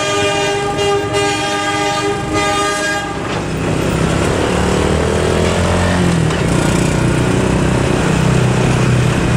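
A freight train of loaded hopper wagons rolling past at close range, with a loud horn sounding steadily for about the first three seconds. After the horn stops, a deeper engine drone that shifts in pitch comes up over the rumble of the wagons.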